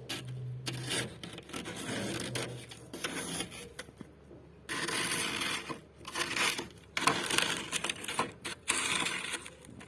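Freezer frost being scraped and crunched in a string of rough bursts, each up to about a second long, with short pauses between them.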